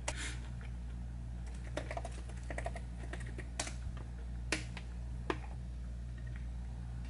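Scattered light clicks of typing on a computer keyboard, with a few sharper clicks near the middle, over a steady low hum.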